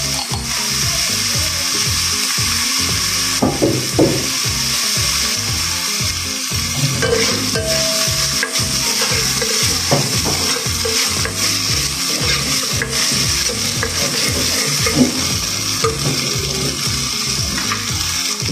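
Diced onion and tomato sizzling steadily in hot oil in a nonstick pot, with a spatula scraping and clicking against the pot now and then as the mixture is stirred.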